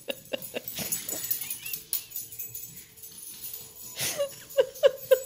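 Small dog yapping excitedly during play, in quick runs of about four short barks a second at the start and again near the end.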